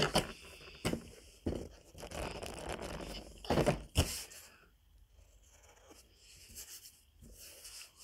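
Pencil drawing on paper: scratchy strokes and paper rubbing, with several sharp knocks on the table, the loudest right at the start and others about one, one and a half and four seconds in.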